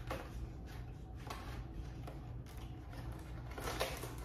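Cardboard box being handled and opened: a few short scrapes and rustles, the loudest near the end, over a steady low hum.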